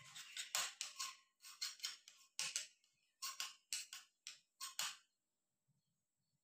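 Knife blade pressing, tapping and scraping across a breadcrumb-coated raw chicken nugget as it is shaped, a string of short crisp scrapes that stops about five seconds in.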